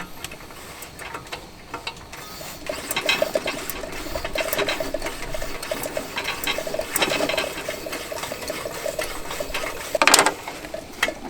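Coleman dual-fuel gasoline lantern being hand-pumped: repeated squeaky strokes of the tank's pump plunger, building pressure so the fuel rises for lighting. A sharp knock comes about ten seconds in.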